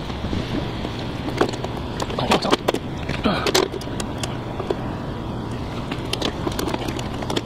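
Scattered clicks and knocks of a motorcycle windshield and its mounting hardware being handled and fitted to the front of a 1970 Harley-Davidson FLH, over a steady low hum.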